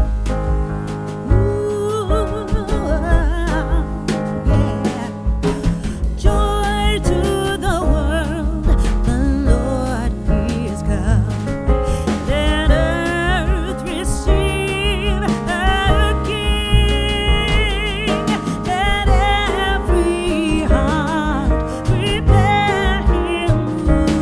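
Music: a song with a singing voice over bass and instrumental accompaniment.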